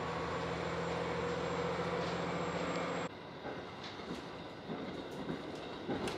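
KiHa 40 diesel railcar's engine running under power, heard from inside the carriage: a steady deep drone with a high whine over it. About three seconds in the sound cuts to quieter running noise with irregular clicks of the wheels over rail joints.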